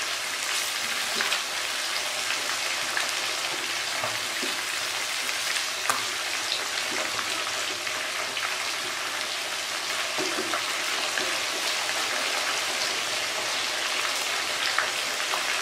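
Chicken leg pieces deep-frying in hot ghee, a steady sizzle. A few light knocks come through it as the pieces are turned with a wooden spatula and a wire skimmer.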